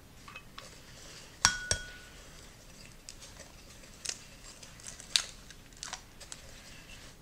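A wooden spoon stirs egg into flour and sugar in a glass mixing bowl, with scattered light taps and scrapes. About a second and a half in there is a sharp clink of glass that rings briefly. An eggshell is cracked over a small glass bowl, giving a few sharper clicks around four to five seconds in.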